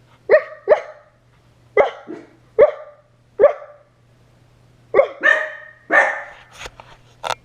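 Pet dogs barking repeatedly: about ten short, sharp barks coming in irregular bursts, some singly and some in quick pairs.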